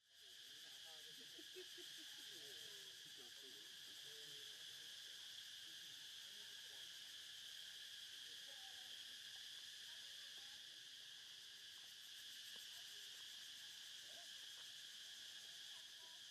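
Faint, steady high-pitched drone of insects, held at an even pitch in two bands, one above the other.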